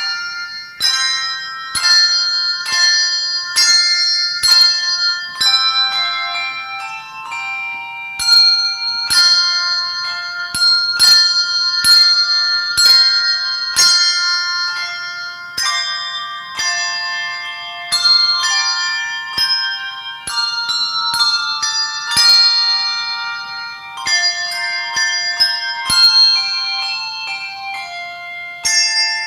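A handbell choir playing a tune, bells struck about once or twice a second, often several together in chords, each note ringing on and overlapping the next.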